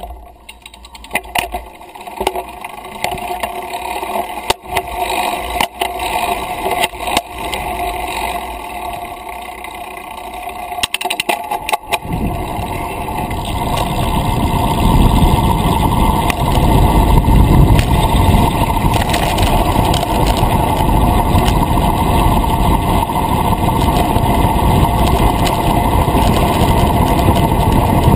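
Road bike coasting downhill: wind buffeting on the microphone with tyre and road noise. Knocks and rattles from the bike come through over the first dozen seconds, then a loud low wind rumble builds up and holds steady as speed rises.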